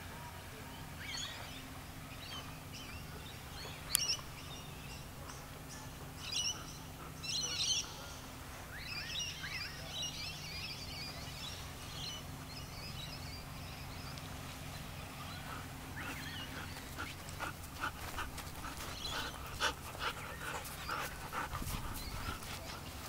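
Poodles close by, panting and moving about, with a run of short clicks and scuffs in the last several seconds as they come up to the camera. Small birds chirp in the first half over a low steady hum.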